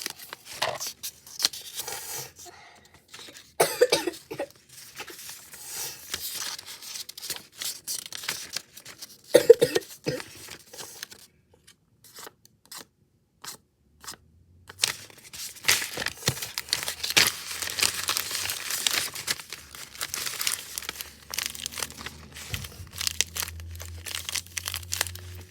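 A person coughs twice, about four and nine and a half seconds in, the second cough the louder. Around the coughs runs crackling, crinkly rustling from handling while cleaning a blind, thickest in the second half.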